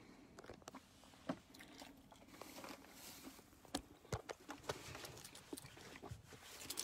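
Faint, irregular crunching and small clicks of a person chewing a raw-vegetable salad.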